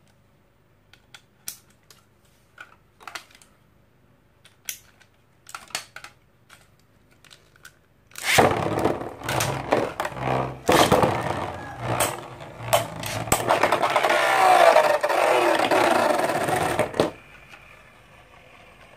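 A few faint handling clicks, then, about eight seconds in, Infinity Nado spinning tops with metal battle rings whirring in a clear plastic stadium and clattering against each other and the stadium walls with many sharp clicks and scrapes. The clatter stops near the end, when one top is knocked out and the other spins on quietly.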